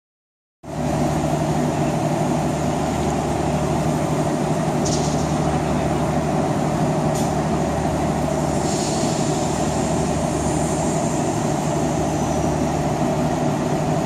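Steady engine hum of a passenger train standing at a station platform, a low drone with a constant pitch, after half a second of silence at the start. A couple of faint clicks come through midway.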